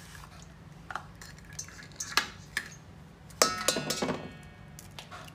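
Eggs being tapped against the rim of a stainless steel mixing bowl to crack them: several sharp knocks. The loudest group comes about three and a half seconds in and leaves the metal bowl ringing briefly.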